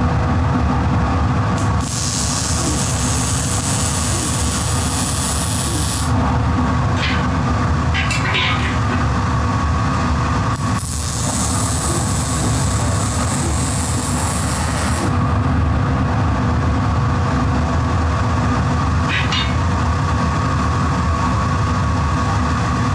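Welding arc hissing on steel frame tubing in two stretches of about four seconds each, over a steady machine hum that carries a constant tone.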